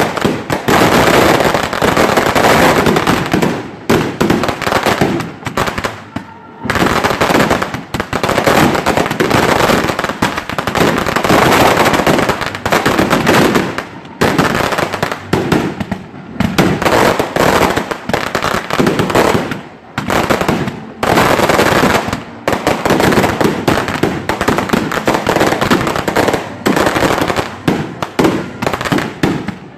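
Fireworks barrage: a dense, rapid run of bangs and crackling that keeps going, broken by a few short lulls.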